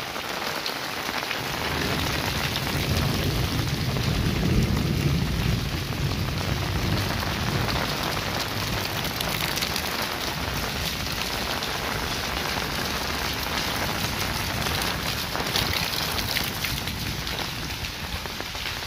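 Heavy rain pouring steadily on a concrete lane and the surrounding walls and roofs, an even, unbroken hiss.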